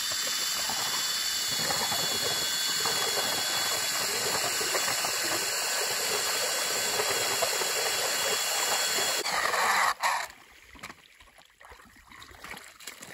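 Power ice auger drilling through ice: a steady, loud, hissing whir for about ten seconds that grows brighter for a moment before it stops abruptly.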